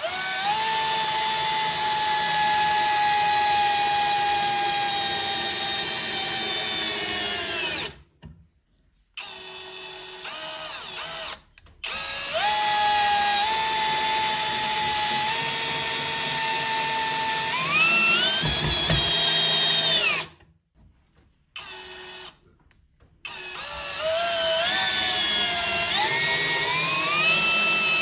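Parkside Performance PBSPA 12 E4 12 V cordless drill-driver running free in three long trigger pulls, a steady motor whine. The pitch jumps up during the second run and climbs in steps during the last as the speed is raised.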